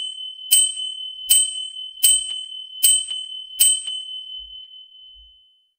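Film countdown leader sound effect: a sharp tick with a high ding about every 0.8 seconds, five times, each with a soft low thump under it. After the last tick the ding rings on and fades out.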